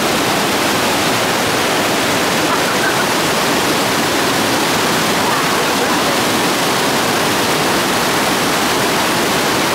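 Steady, loud rush of a small rocky stream cascading over boulders.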